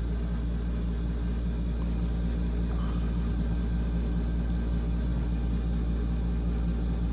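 Steady low background hum, unchanging throughout.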